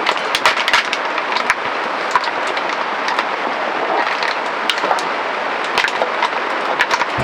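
Food frying in a hot pan: a steady sizzle with frequent sharp pops and crackles.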